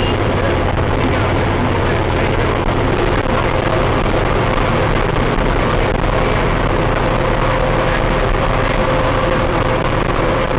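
Steady engine and road drone heard inside the cab of a vehicle cruising at motorway speed, with a faint steady whine running alongside.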